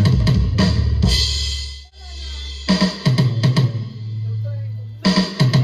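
Alesis Turbo Mesh electronic drum kit played over a music track with held bass notes. A run of kick, snare and cymbal hits breaks off briefly about two seconds in, a few sparser hits follow, then a quick run of strikes comes near the end.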